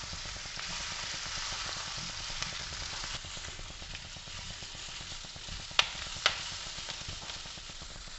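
Soya chunks, onion and capsicum sizzling as they fry in a nonstick wok, stirred with a spatula. The spatula knocks sharply against the pan twice, about half a second apart, a little under six seconds in.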